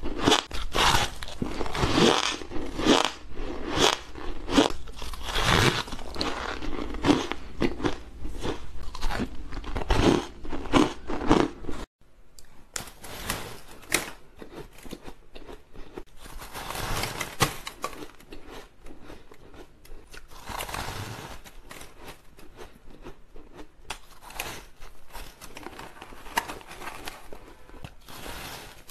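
Close-miked biting and chewing of frozen shaved ice, a dense run of crisp crunches. About twelve seconds in the sound cuts off abruptly, and the crunching that follows is quieter and softer.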